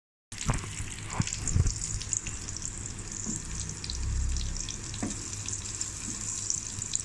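Sliced almonds and raisins sizzling in hot ghee in a kadhai as they roast until the raisins puff up. A wooden spatula stirs them, scraping and knocking against the pan a few times.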